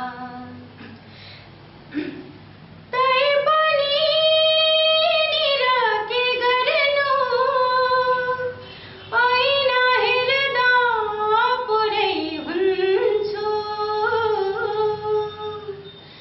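A woman singing a qawwali-style Nepali ghazal solo, holding long, ornamented notes. After a quiet pause of about three seconds she sings two long phrases with a short break between them.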